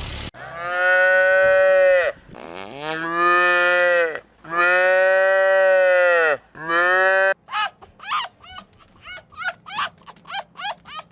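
Cow mooing: four long calls, one straight after another. About seven seconds in these give way to a fast run of short, high-pitched calls, roughly three a second.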